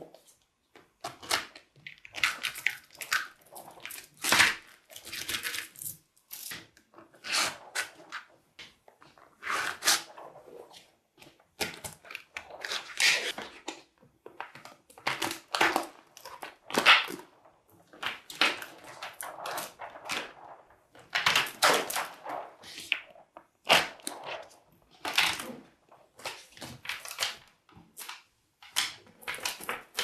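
Small magnetic balls clicking, rattling and snapping together as sheets of them are pulled apart and lifted by hand, with a stiff plastic sheet slid against them. The noise comes in irregular bursts every second or two.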